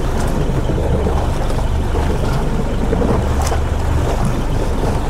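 Steady low rumble and wash of a small fishing boat under way at sea, with wind on the microphone.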